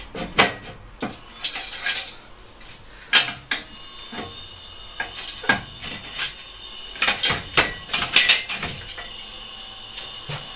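Steel acrow prop being fitted and adjusted against a wall: irregular metallic clinks and clanks of the steel parts knocking together, coming in clusters and loudest in a run near the end.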